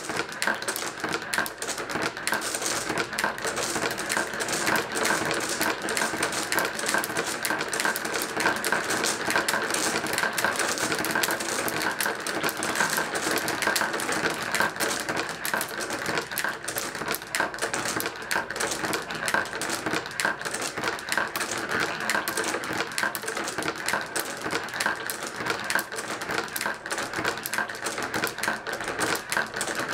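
Glass marbles rolling down a marble run of wooden blocks and plastic channels and dropping into stacking tubes: a dense, unbroken stream of small clicks and clacks.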